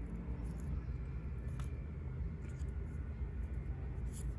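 A few faint snips and paper rustles from scissors cutting small paper shapes, over a steady low background hum.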